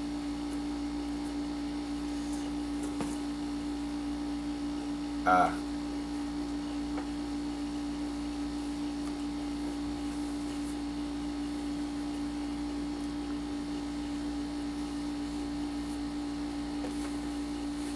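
A steady electrical hum, with one short vocal sound about five seconds in.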